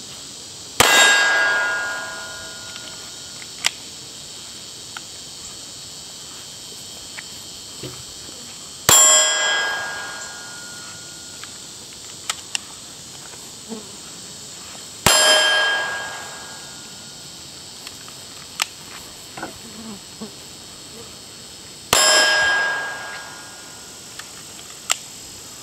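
Four single pistol shots spaced several seconds apart, each followed by the ring of a hit steel target that dies away over a second or so. Light clicks of magazine handling fall in the gaps between the shots.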